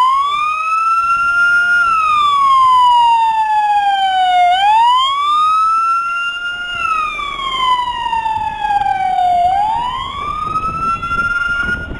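Electronic wail siren of a Romanian police Mercedes Vito van, sweeping slowly up and down in pitch, about five seconds to each rise and fall.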